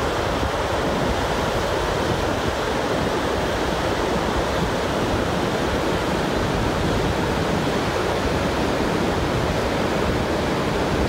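Heavy torrent of water pouring over the crest of the Grand Ethiopian Renaissance Dam: a loud, steady rush of falling water.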